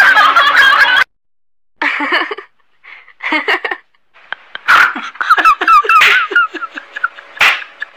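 A run of short, high rising squeaks, several a second, after an abrupt cut to silence and a few brief bursts.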